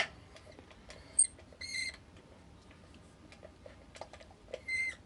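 Yale Y220/51 padlock being locked: a sharp metallic click about a second in as the shackle snaps shut, followed by a short high squeak, with another squeak and faint small clicks near the end.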